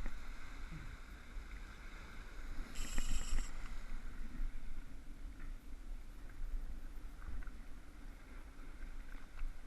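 Steady low wind rumble on the microphone by the sea, with a short high rasping burst about three seconds in.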